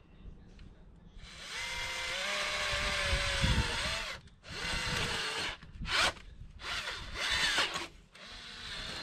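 Cordless drill turning a wide auger bit into heavy clay soil. The motor whines steadily, then sags in pitch as the bit bites. After that come several shorter bursts of drilling.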